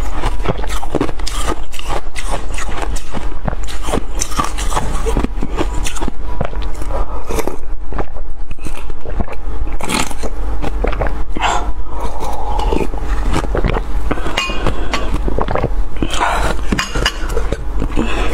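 Close-miked eating of icy slush: a metal spoon scraping and clicking against a glass bowl, with chewing, crunching and slurping, in many short irregular clicks. A steady low hum runs underneath.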